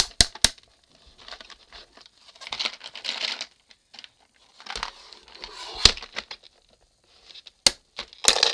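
Plastic toy gumball machine being worked by hand: sharp plastic clicks and rattling of the small plastic figures inside as the handle is twisted. The machine is jamming because it is overfilled with figures.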